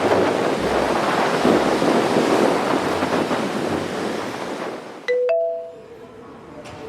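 Waves breaking on a beach with wind buffeting the microphone, fading out about five seconds in. A brief two-note chime, lower then higher, follows.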